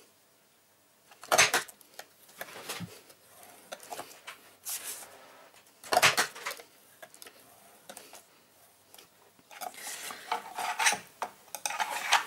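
Gift box punch board punching through white cardstock, two sharp clacks about a second and a half in and about six seconds in. In between, the plastic bone folder scrapes along the scoring guide and the card sheet slides and rustles on the board.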